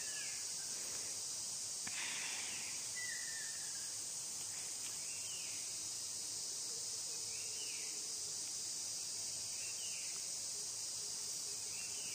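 Steady high-pitched drone of an insect chorus, with a short chirp repeating every second and a half or so.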